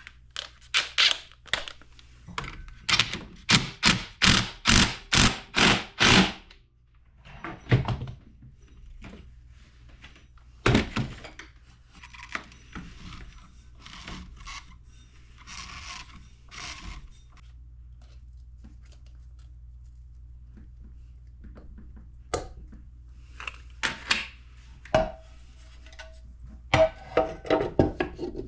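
Hand tools and metal engine parts being handled during assembly: a quick run of about ten evenly spaced strokes, about three a second, a few seconds in, then scattered clicks, knocks and scrapes.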